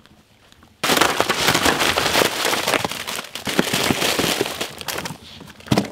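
Dozens of plastic-wrapped Oreo biscuit packs tipped out of a cardboard box, tumbling onto a pile with a dense crackling rustle of wrappers. It starts suddenly about a second in and thins out toward the end, with one last clatter near the end.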